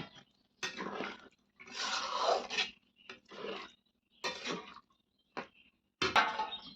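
A metal spoon or ladle stirring and scraping in a cooking pot, in irregular strokes with short pauses between them.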